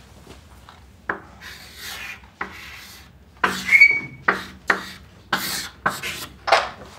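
Chalk writing on a chalkboard: a run of short strokes, with a brief high squeak of the chalk a little under four seconds in.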